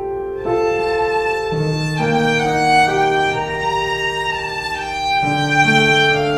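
Background music: slow, held instrumental notes in chords, changing about every second, with a string-like tone.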